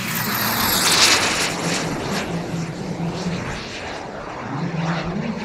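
Tomahawk Integral model jet's small gas turbine passing low and fast. Its high turbine whistle falls in pitch as it goes by, the rush is loudest about a second in, and then it eases off as the jet climbs away.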